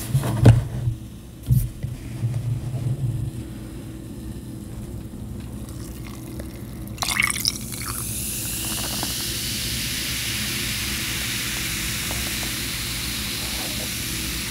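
Canada Dry soda poured from its bottle into a glass, a steady fizzing hiss that starts about eight seconds in and keeps going, after a cluster of clicks just before it. A couple of sharp knocks in the first two seconds.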